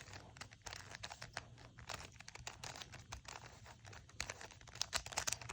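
Plastic Rubik's cube faces being turned in quick succession, a dense run of small clicks and rattles, busiest near the end. The turns are the algorithm that forms the cross (the 'plus') on the last layer.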